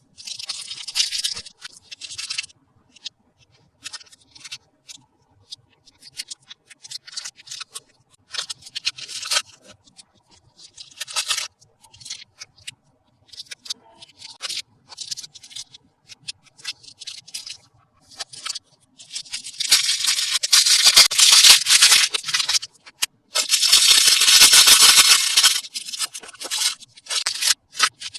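Toy packaging being handled and opened by hand: scattered short crinkles and scrapes of plastic and cardboard, then two long spells of loud, continuous crinkling and rustling in the last third.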